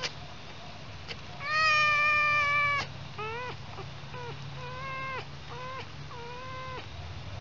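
Red fox whining while its belly is rubbed by hand. There is one long, high whine, then four or five shorter whines, each rising at the start.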